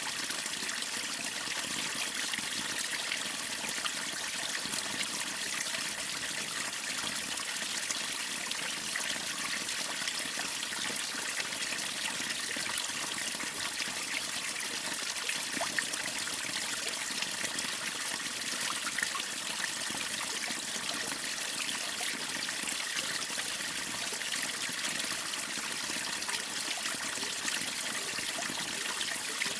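Waterfall and stream water running and splashing: a steady, even rush with small scattered splashes and trickles.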